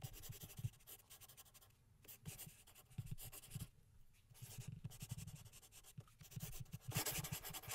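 Faint scratching and tapping of a stylus writing on a tablet, in short strokes broken by brief pauses.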